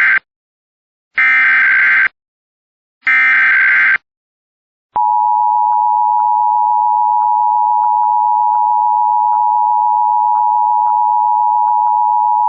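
Emergency Alert System SAME header: the end of one harsh warbling data burst, then two more bursts of about a second each, a second apart. About five seconds in, the EAS attention signal starts: a steady two-tone sound held through the rest, marking a Required Monthly Test.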